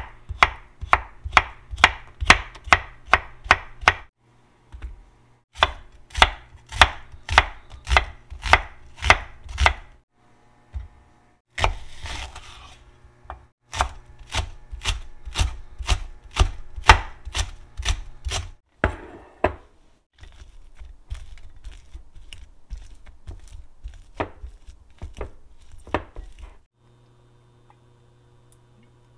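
Kitchen knife slicing a Korean zucchini and then a thick green onion on a wooden end-grain cutting board: quick, even cuts at about three a second, each ending in a knock on the board. The runs break off for short pauses, grow softer in the later part, and stop a couple of seconds before the end.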